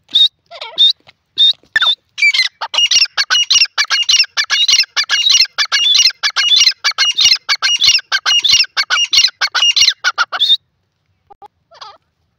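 Grey francolin calling. A few short, sharp notes are followed from about two seconds in by a loud, fast run of high repeated notes that lasts about eight seconds and stops abruptly, with a couple of faint notes after it.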